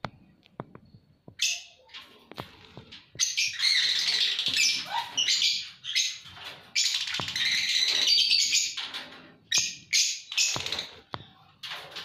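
Lovebirds chirping and squawking shrilly, sparse at first and then a dense, loud chatter from about three seconds in. A few sharp clicks and knocks come in between the calls.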